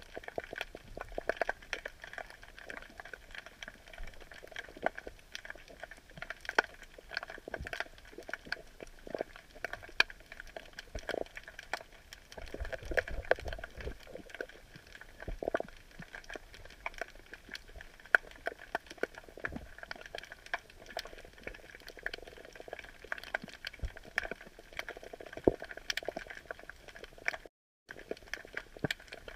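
Underwater crackling from snapping shrimp: a dense, irregular stream of sharp clicks and pops, with a few louder knocks in the middle. The sound cuts out for a moment near the end.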